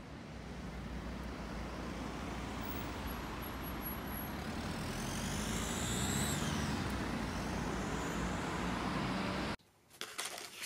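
City street traffic: a steady rumble of passing vehicles, with a high whine that rises and then falls around the middle. It cuts off abruptly about nine and a half seconds in, leaving a quiet room with a few soft clicks of paper and card being handled.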